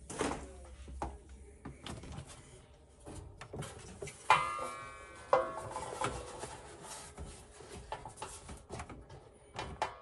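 Handling knocks and clatter on the open tumble dryer's drum and panels as the drive belt is fitted, with two sharp metallic clanks about a second apart near the middle, each ringing on briefly.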